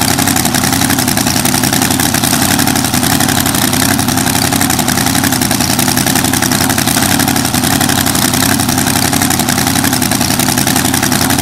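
A drag racing car's engine idling loudly and steadily, without revving.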